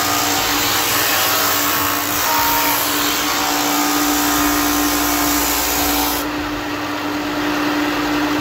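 Bauer belt and 6-inch disc sander's motor running with a steady hum while a piece of wood is pressed against the spinning sanding disc, making a loud sanding hiss. The sanding hiss stops about six seconds in as the wood comes off the disc, and the motor keeps running.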